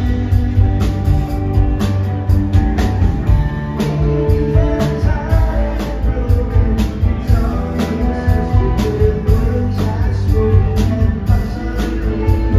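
Live rock band playing: electric guitars, bass and drum kit with a saxophone, over a steady drumbeat.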